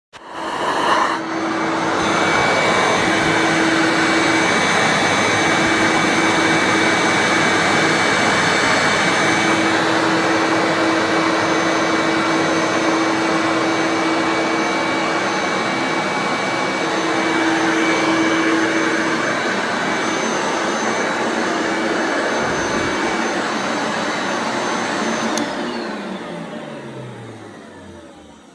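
Hoover Turbomaster U5078 upright vacuum cleaner switched on, its motor coming up to speed within about a second and then running steadily with a high whine. Near the end it is switched off and the motor winds down, its pitch falling away.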